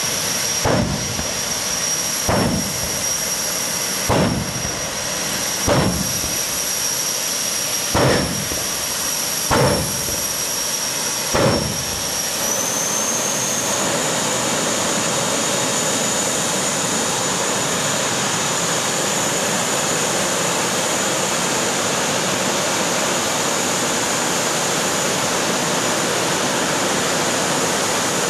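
Turbojet engine of a jet funny car running at the line with a steady high whine, broken by seven short, loud afterburner blasts about every 1.7 s. About twelve seconds in, the whine rises as the engine spools up, and a steady, louder jet noise holds to the end.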